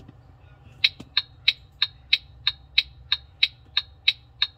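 Volvo VNL truck instrument cluster's built-in speaker playing its turn-signal flasher sound during the cluster's speaker self-test: evenly spaced sharp ticks, about three a second, starting about a second in.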